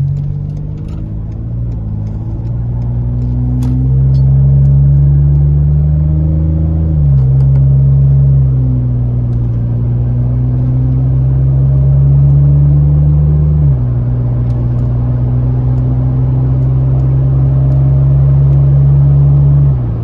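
Ford Expedition with an SPD Performance aftermarket exhaust, heard from inside the cab as it accelerates. The exhaust drone climbs steadily in pitch, then drops at upshifts about seven and fourteen seconds in, and climbs again after each one.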